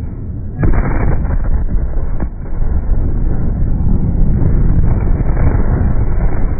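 Ammonium nitrate explosion at a port heard at close range: a sudden loud blast about half a second in, followed by continuous loud rumbling noise.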